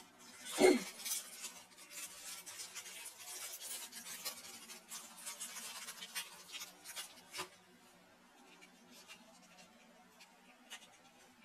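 Clear plastic wrapping crinkling and rustling as it is torn off a microSD card pack by hand, with a loud crinkle about half a second in. The rustling ends with a sharp click after about seven seconds, followed by a few faint clicks of the card's small plastic case being handled.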